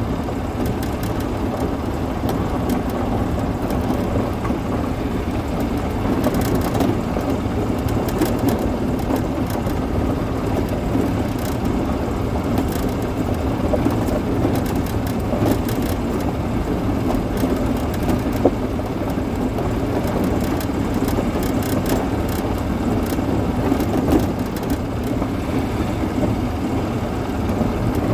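Yamaha golf cart driving along a gravel lane: a steady running sound with tyre noise and frequent small rattles and clicks.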